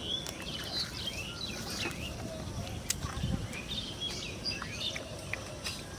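Small birds chirping over and over in short, rising and falling notes, with a few sharp clicks.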